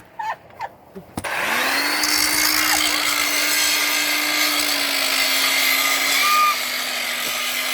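Electric grinder switched on about a second in, spinning up quickly and then running steadily while it grinds a fresh stick weld clean.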